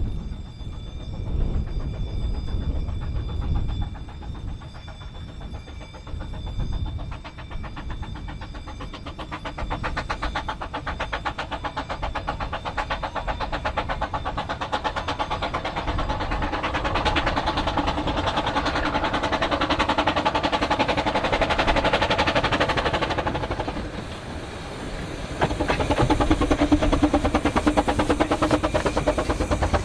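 2ft-gauge 0-4-2T tank steam locomotive No.6 'Mr G' approaching with its train, its running and wheel noise rising with an even, quick rhythm from about ten seconds in. It eases briefly, then is loudest over the last few seconds as it comes past close by.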